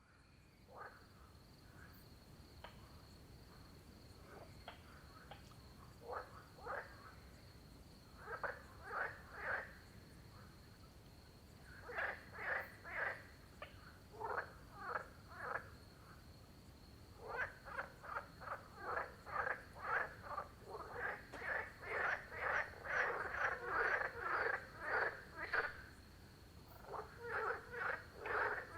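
Frogs croaking in bouts of rapidly repeated croaks, about two a second. The calls are sparse and quieter at first and become denser and louder in the second half, when several frogs call together.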